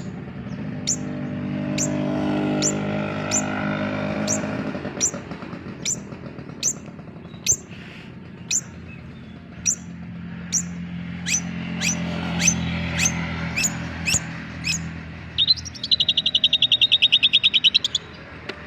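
Long-tailed shrike giving short, sharp call notes about once a second, coming a little faster as it goes on. Near the end it breaks into a rapid, rattling chatter of many notes.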